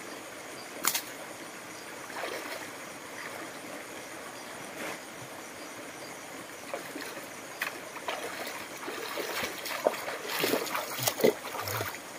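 Steady trickling of a small forest stream. About a second in, a single sharp snap of a rubber slingshot being shot. Near the end come scattered rustles and clicks of movement through brush.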